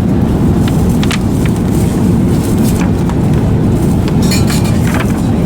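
Steady low rumble of airliner cabin noise on an Airbus A380, with a few light clicks and clinks over it.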